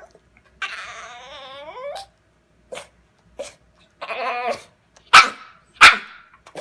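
A dog vocalizing in protest: a drawn-out grumbling whine that falls in pitch, a shorter grumble, then two short, sharp, loud outbursts.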